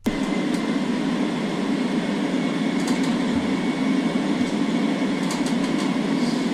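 Steady rumble of an A320 flight simulator's engine and airflow sound on approach, heard inside the simulator cockpit, with a few faint ticks.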